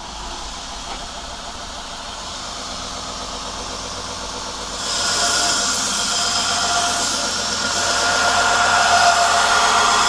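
Wilmont belt grinder running, its abrasive belt whirring steadily; about five seconds in, a steel knife blade is pressed to the moving belt and a loud grinding hiss sets in as the blade is flat ground.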